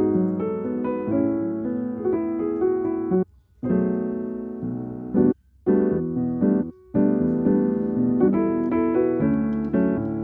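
Background piano music, breaking off briefly three times.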